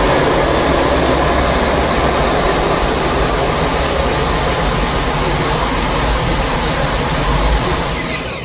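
A loud, steady rumbling noise with a heavy deep low end, fading out near the end.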